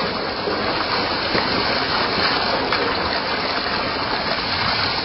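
A steady stream of water gushing down onto a mud-caked plastic toy dump truck and splashing into wet mud around it.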